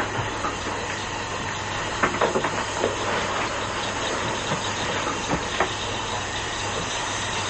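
Steady hissing noise, with a few light rustles and knocks as a quilt is spread over a bed.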